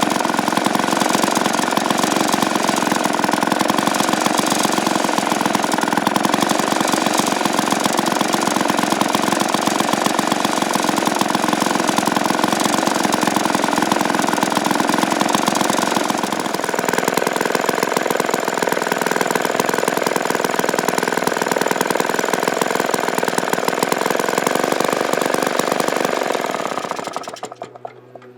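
Vintage 1953 ATCO lawnmower's Villiers two-stroke engine running steadily and well. Its note changes about halfway through, and near the end it dies away and stops.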